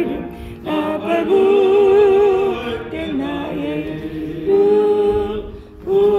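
A Korean hymn sung slowly in long held notes with vibrato, with short breaths between phrases.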